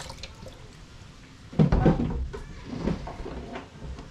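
Knocks and clatter of kitchen things being handled, loudest in a sudden knock about one and a half seconds in, with a plastic chopping board being moved about.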